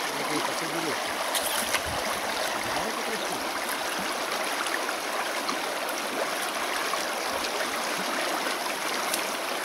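Taiga river water flowing, a steady even rush.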